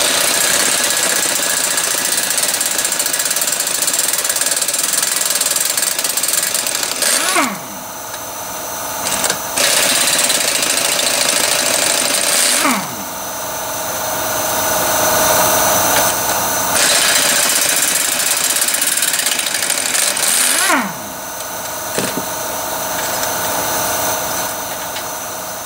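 Air-powered wrench with a half-inch socket running in three long runs as it spins out the sump cover bolts of a Briggs & Stratton single-cylinder OHV Intek engine. Each run ends with a falling whine as the tool winds down.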